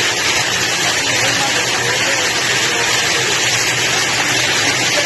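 Steady, loud rush of water, an even hiss with no break, with faint wavering voices underneath.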